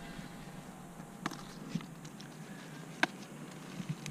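A few short, sharp snaps as the top flowers are pinched off a pepper plant by hand, the loudest about three seconds in.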